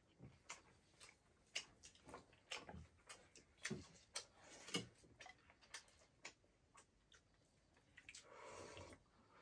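Faint, irregular clicks and smacks of people eating pork leg, with a few soft low knocks.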